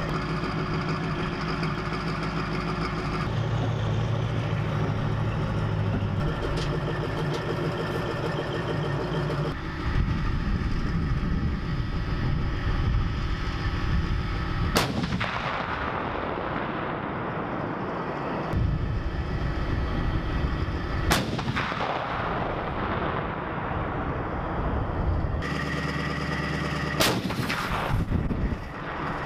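M109A7 Paladin self-propelled howitzer: its engine running steadily, then the 155 mm gun firing, the first shot about halfway through and more about every six seconds after, each a sharp blast with a long rumbling tail.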